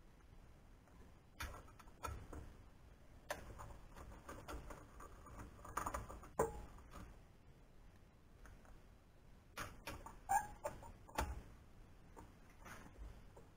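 Irregular light clicks and knocks of a screwdriver and small hardware against an aluminium extrusion frame, about a dozen spread out with quiet between, a few sharper than the rest.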